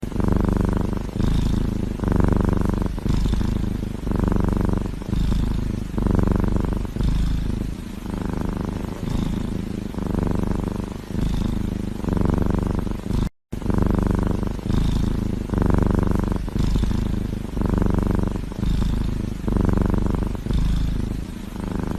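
Domestic cat purring loudly close to the microphone, the purr swelling and fading about once a second. It breaks off for an instant a little past the middle, then carries on.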